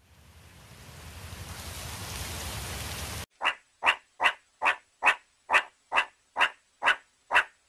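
A steady hiss like rain swells in and stops abruptly a little after three seconds in. Then comes an evenly paced series of short, sharp animal calls, about ten of them at roughly two and a half per second.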